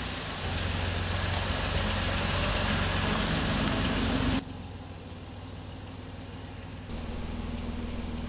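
SUV's engine running with tyre noise as it drives slowly past on a dirt track. About four seconds in the sound cuts suddenly to a quieter, steady engine hum.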